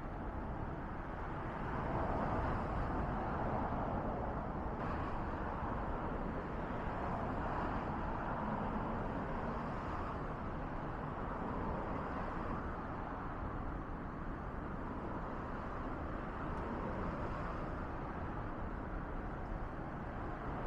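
Straw fire burning in a Takibi Dondon MP350 metal incinerator: a steady rushing noise of the flames, slightly louder about two seconds in.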